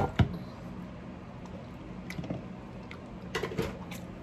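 Spiced baby carrots being set by hand into a disposable aluminium foil roasting tray: two sharp taps at the start, soft wet squishing, then a few more light clicks and taps a little over three seconds in.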